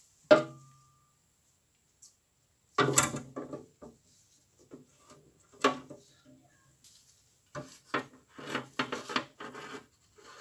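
A steel file knocking against a plastic tub, with a brief metallic ring, then irregular knocks and scrapes as wire and a round steel plate are handled into the tub to set up rust-removal electrolysis.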